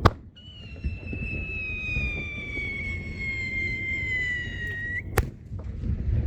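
A fireworks shell is fired with a sharp bang. A whistle trails it as it climbs, one long tone sinking slowly in pitch for about four and a half seconds, then the shell bursts with a second bang about five seconds in.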